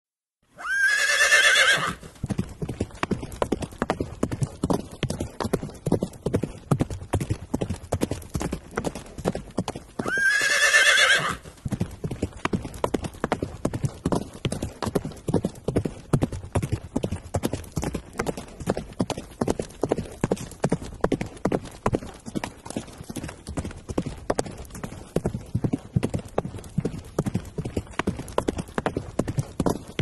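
Horse whinnying, a loud wavering neigh of about a second and a half, followed by steady rhythmic hoofbeats clip-clopping. The same whinny comes again about ten seconds in, and the hoofbeats carry on after it.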